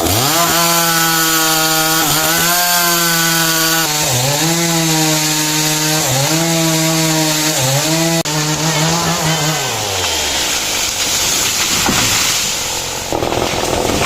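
Small two-stroke engine running at high, steady revs. Its pitch dips briefly four times as it bogs under load, then it winds down and stops about ten seconds in.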